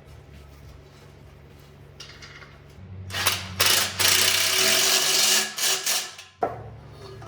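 Ratchet wrench clicking rapidly on exhaust flange bolts for about three seconds, then stopping abruptly.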